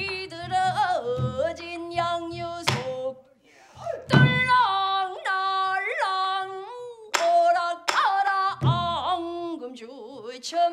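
A woman singing pansori: long, bending, heavily inflected notes with a brief pause about three and a half seconds in. Barrel drum (buk) strokes go with it, low thumps and a few sharp rim clicks.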